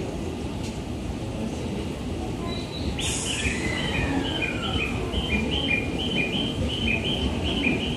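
E353 series electric train standing at the platform with a steady rumble; about three seconds in a sharp hiss, then a repeating two-tone electronic chime, alternating high and low, the chime of the doors closing before departure.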